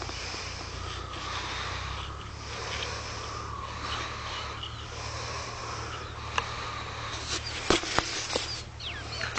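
Breathing close to the microphone, swelling and fading about once a second over a steady low hum, while a shot bird is handled and cut with a knife. A few sharp clicks of handling come about three quarters of the way through, and short chirping calls begin right at the end.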